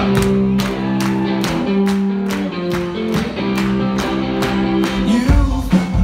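Live band playing an upbeat song with held keyboard chords, while the audience claps along in time, about three claps a second. A heavier bass and drum beat comes in about five seconds in.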